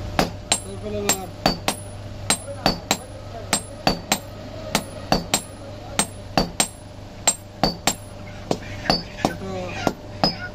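Hand hammers striking a red-hot steel blade on an iron anvil, a steady run of sharp blows about two to three a second, each with a short metallic ring.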